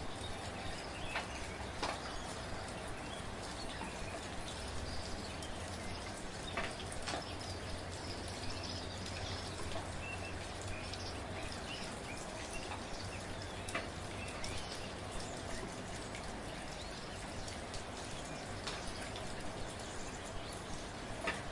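Steady gentle rain, with scattered louder drops tapping close by.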